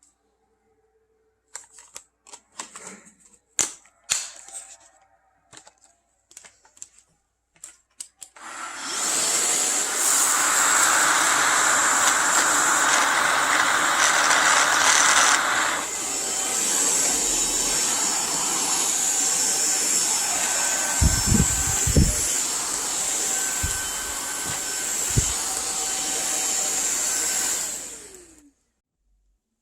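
Handling clicks and knocks, then a cordless stick vacuum cleaner switched on and running with a steady motor whine. Its level drops about halfway through. A few low thumps come near the end before it is switched off.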